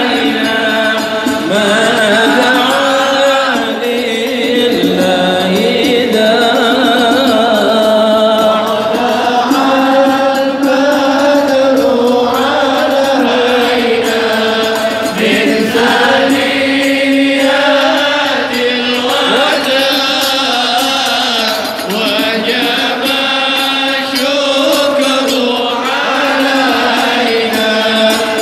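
Voices chanting a melodic Islamic devotional song (sholawat), the tune rising and falling without a break.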